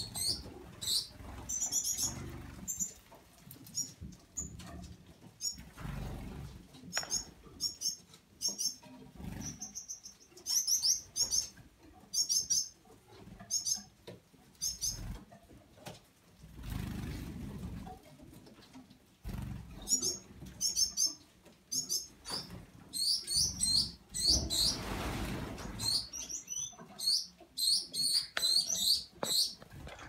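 A flock of Gouldian finches and their juveniles chirping, with short high calls, singly and in quick clusters, throughout, and a few soft rustles and bumps in between.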